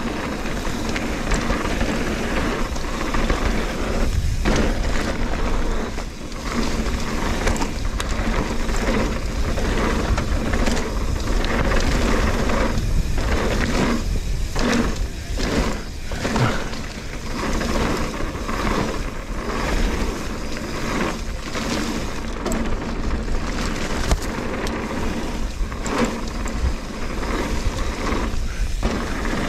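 Trek Fuel EX 8 full-suspension mountain bike ridden along a dirt trail: steady tyre noise and wind rumble, with rapid clicks and rattles from the chain and frame over bumps.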